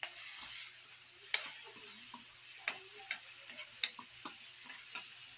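Tomato sauce and sliced vegetables sizzling in a hot wok, with the hiss jumping up suddenly at the start, while a spatula stirs, clicking against the pan about six times.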